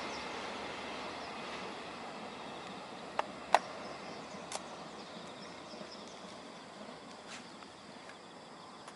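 Rumble of a passing freight train fading steadily as it draws away. Three short sharp clicks come about three to four and a half seconds in.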